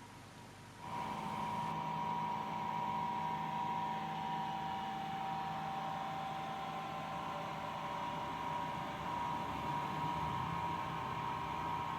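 A small electric motor running steadily with a whine and a low hum, switching on about a second in.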